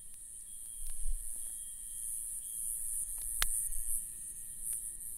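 Steady high-pitched insect chorus, with a few faint clicks and one sharper click about three and a half seconds in.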